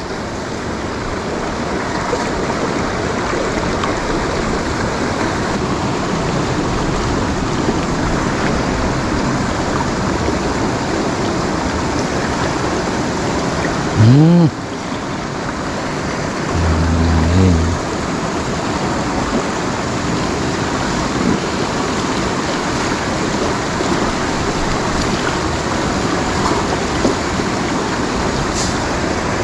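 Shallow, fast river rushing steadily over rocks. Two brief pitched sounds come through about halfway: a short rising one, then a short hum.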